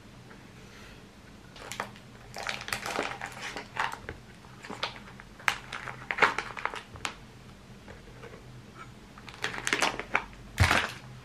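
Plastic food packaging crinkling and crackling in bursts as frankfurter sausages are pulled out of their wrapper, with a dull thump near the end.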